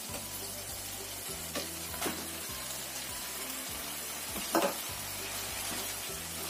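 Sauce with chicken and sausage sizzling in a frying pan as it is stirred with a slotted spatula, with a few sharp knocks of the spatula against the pan, the loudest about four and a half seconds in.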